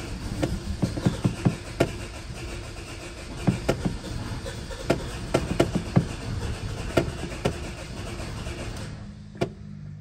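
A 2011 Hyundai Sonata's engine running roughly and struggling to stay running, with irregular pops and stumbles, then dying near the end. The stumbling apparently comes from the engine running short of fuel.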